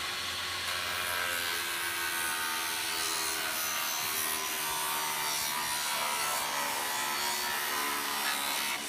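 Portable table saw running steadily and cutting through a white vinyl fence picket, the blade making an angled cut across the picket's bottom end.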